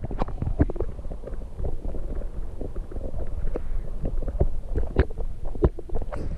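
Stream water heard underwater through a submerged camera: a muffled low rumble with many irregular clicks and knocks, the sharpest about five seconds in.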